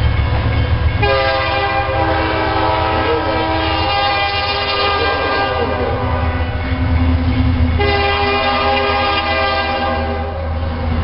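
Diesel locomotive's multi-chime air horn sounding several notes at once in a long blast from about a second in. A lower tone carries on, then the full chord sounds again for a couple of seconds near the end, over the steady low rumble of the locomotive.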